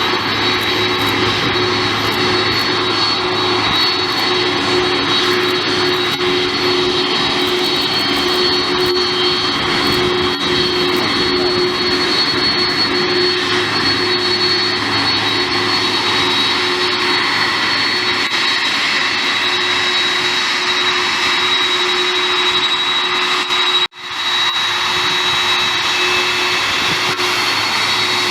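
Boeing 767 jet engines running steadily: a broad rushing noise with a high whine over it. The sound cuts out for a moment about 24 seconds in, then resumes.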